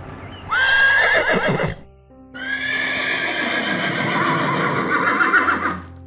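Two horse whinnies, a shorter one followed by a longer, wavering one, over background music.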